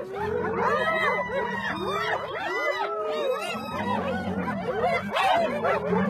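A group of spotted hyenas calling at once: many overlapping yelps and whoops that rise and fall in pitch. A low rumble comes and goes underneath.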